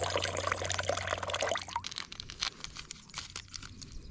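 Noodle cooking water poured in a thin stream from an aluminium mess tin, splashing into lake water. The pouring stops a little under two seconds in, leaving only faint small clicks.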